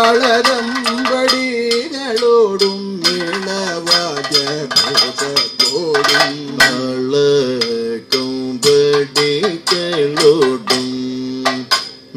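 Kathakali music: a sung line held on long, wavering notes with no clear words, over frequent chenda drum strokes and metallic gong and cymbal beats keeping time.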